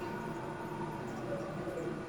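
Toilet tank refilling through its fill valve: a steady hiss of running water with a steady whine in it, the whine fading about a second in.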